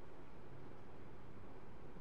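Steady room tone: a low hum under an even hiss, with no distinct sounds standing out.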